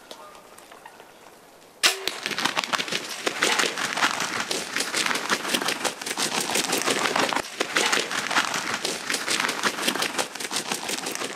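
A single sharp shot about two seconds in, followed by dense, rapid crackling and rustling.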